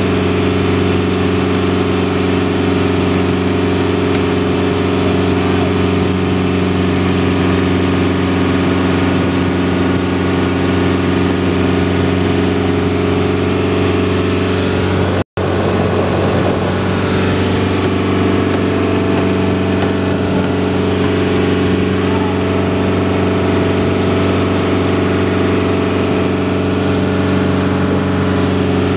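Engine of a motorized outrigger fishing boat (bangka) running steadily under way, a constant drone. The sound cuts out for an instant about halfway through.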